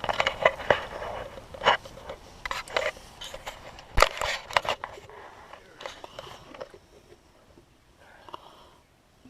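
Hand tools working on a new steel brake line piece: irregular scraping and clicking, with one sharp knock about four seconds in, then only a few faint clicks toward the end.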